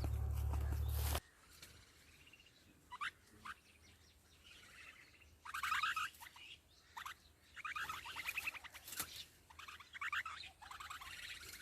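Nestling birds giving begging calls for food: scattered single chirps, then bursts of rapid, trilled chirping. A loud steady hum cuts off suddenly about a second in.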